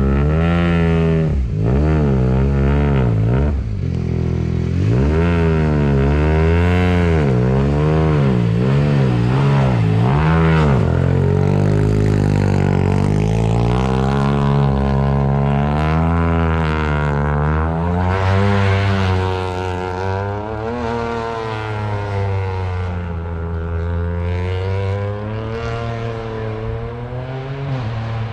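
Turbocharged engine of a Toyota GR Yaris AP4 rally car being revved over and over, its pitch climbing and dropping about once a second for the first ten seconds, then in slower, longer swells. The cars are being run to warm them up.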